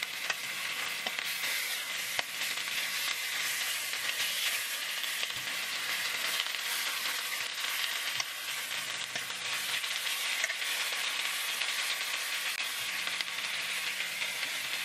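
Chicken drumsticks sizzling steadily as they brown in hot oil in a stainless steel frying pan. A few light clicks come from a fork turning the pieces.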